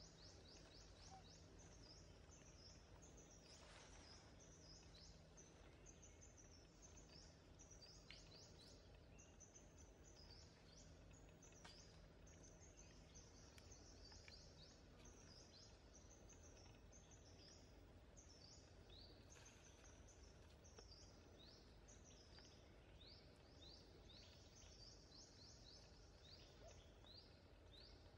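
Near silence: faint outdoor ambience with high, quick chirping notes in repeated runs, and a low steady hum that stops about halfway through.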